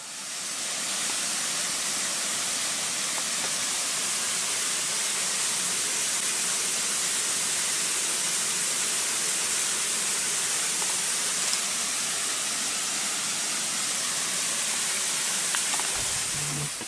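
A steady, even hiss that fades in over about the first second and cuts off suddenly at the end.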